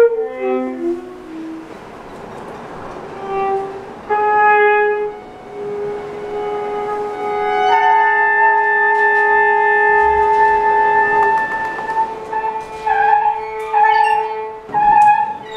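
Improvised music on violin, flute and clarinet: a short falling run of notes at the start, then long held notes overlapping one another.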